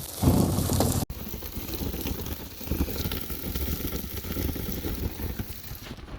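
Insulation blowing machine running, with a steady hiss of air and loose cellulose and a low rumble, louder for the first second.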